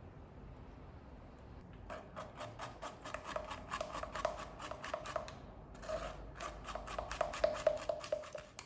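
Popcorn kernels popping in hot oil in a pot: a rapid run of sharp pops and crackles starting about two seconds in, with a short lull before it resumes. It stops suddenly near the end.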